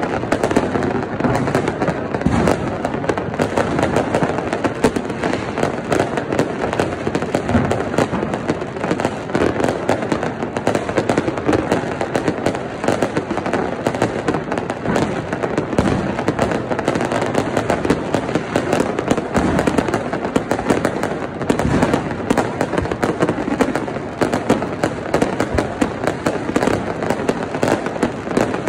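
Many fireworks going off at once, near and far: a dense, unbroken stream of bangs and crackles.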